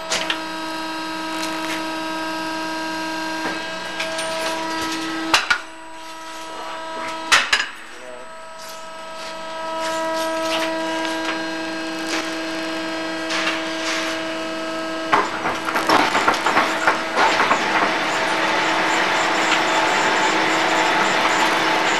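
Hegenscheid 105 underfloor wheelset lathe running with a steady machine hum, with two sharp knocks about 5 and 7 s in. About 15 s in, a rough, crackling scraping noise sets in as the rail wheel turns on the lathe's drive rollers.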